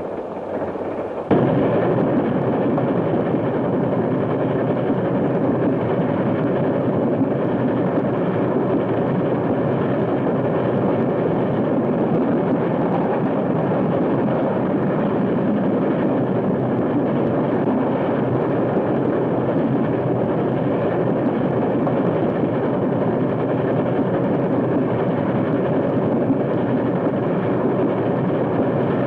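Steam train running at speed: a steady, dense rumbling rush that cuts in abruptly about a second in and holds evenly.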